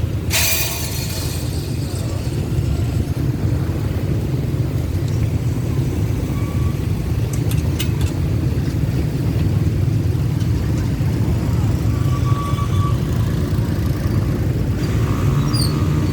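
Diesel-hauled passenger train running steadily, a continuous low rumble, with a short hiss just after the start and a few faint clicks partway through.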